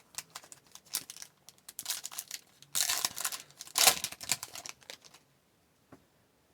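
Upper Deck hockey card pack wrapper crinkling and being torn open, with the cards handled, in an irregular run of rustles and clicks. It is loudest around the middle and stops about five seconds in.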